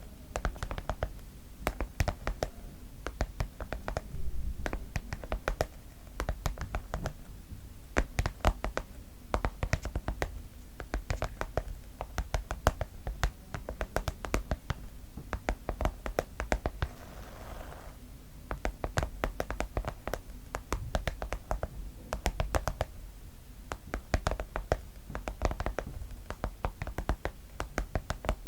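Rapid tapping and scratching on a pencil case, in quick clusters of sharp taps, with a brief rubbing scratch about two-thirds of the way through.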